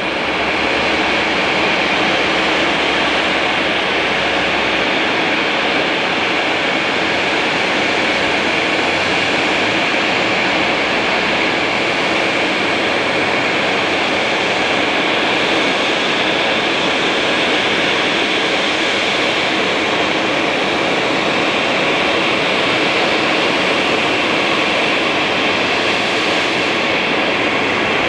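Jet engine noise from a Boeing 737-800 airliner's two CFM56 turbofans as it comes in to land: a steady, unchanging sound with a strong high hiss.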